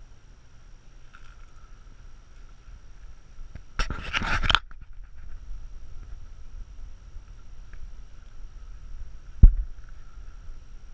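Handling noise from a camera being moved among tree branches: a short burst of scraping and rustling about four seconds in and a single sharp thump near the end, the loudest sound, over a faint low wind rumble.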